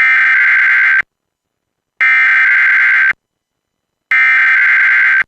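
Emergency Alert System SAME header: three bursts of digital data tones, each about a second long with about a second's gap between them. They mark the start of an automated weekly test of the emergency alert system.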